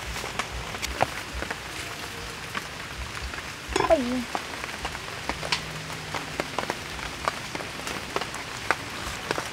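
Irregular knocks and scrapes of a cleaver on a wooden chopping board as raw beef and then a pineapple are cut, over a steady background hiss. About four seconds in, a short call falls in pitch.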